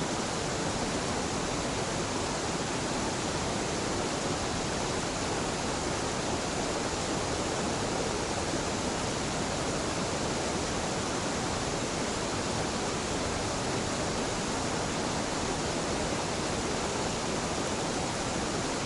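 A gentle waterfall on a mountain river: falling water giving a steady, unbroken rush.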